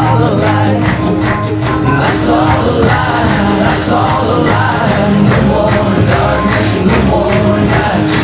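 Upbeat music with a steady beat and singing, playing for a line dance.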